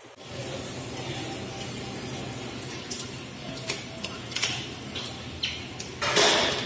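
Steady kitchen background noise with a low hum, a few light clicks and clinks in the second half, and a short louder burst of noise near the end.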